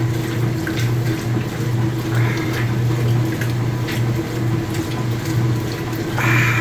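Speed Queen TC5 top-load washing machine agitating in its wash cycle: water sloshing and churning over a steady motor hum that pulses slightly.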